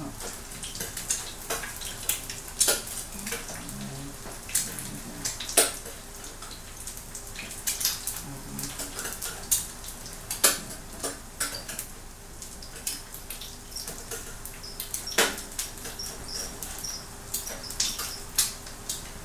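Metal cooking utensils clinking and clattering against a frying pan on the stove, irregular clicks with a few louder clacks, over a faint sizzle of food frying.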